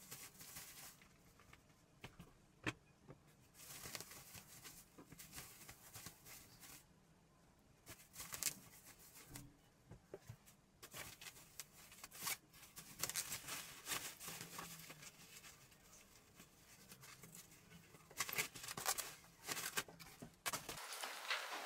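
Faint, intermittent rustling and light clicks of household things being handled, with one sharper click about three seconds in.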